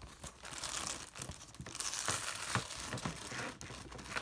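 Packaging crinkling and rustling as it is handled and pulled off, in irregular stretches with a few light clicks.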